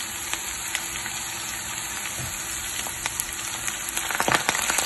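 Hot oil sizzling in a frying pan with sliced garlic, onion and whole dried red chillies, frying a tempering (baghar) for kadhi. About four seconds in, the crackling and popping grows louder as fresh curry leaves go into the oil.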